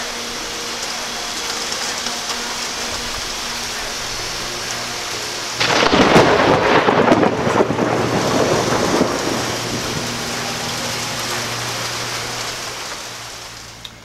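Steady heavy rain with a thunderclap that breaks out suddenly about six seconds in and rumbles away over the next few seconds. The rain fades out near the end.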